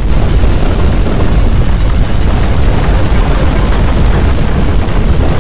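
Loud, steady low rumble of strong earthquake shaking, with faint scattered clicks and rattles on top.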